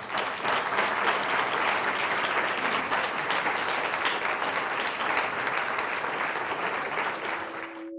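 Audience applauding, a steady mass of clapping that begins as soon as the talk ends and tapers off near the end.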